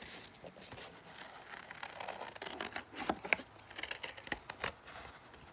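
Scissors cutting through thin cardboard: a run of uneven snips and scrapes, sharpest about three seconds in.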